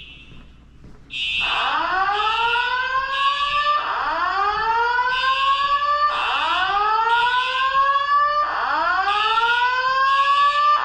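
Building fire alarm sounding its evacuation signal between voice messages. About a second in, a slow rising whoop starts and repeats about every two and a half seconds. Over it runs a high-pitched beeping about once a second.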